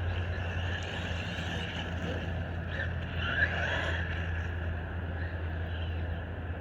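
Traxxas Maxx RC monster truck's brushless electric motor whining and changing pitch as the truck is driven. Its whine rises and falls most strongly a few seconds in, with a brief sharp knock in the middle, over steady low wind rumble on the microphone.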